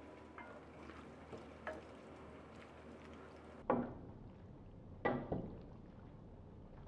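Wooden spoon stirring creamy pasta with beef in a stainless steel pan, knocking sharply against the pan twice, about a second and a half apart.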